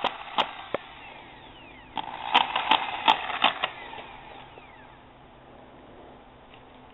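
Sharp taps and knocks, likely from hand tools on the pool surface during carbon fiber staple work: a few spaced strikes at first, then a quick run of about six between two and four seconds in, over a faint hiss.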